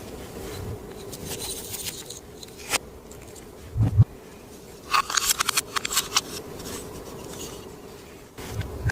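Clear slime being worked by hand or stirred, with short sticky clicks and crackles. A quick run of crackling comes about five seconds in, and a dull thump just before four seconds.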